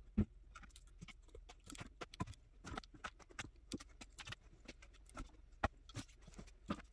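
Irregular light clicks and taps from a cat pawing at a string toy on a cat-tree shelf, with a sharper knock just after the start and another near the end.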